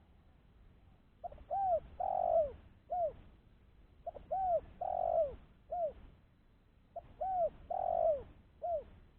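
Spotted dove (tekukur) cooing. It gives three identical phrases about three seconds apart, each a short note, an arching coo, a longer loud coo and a short closing coo.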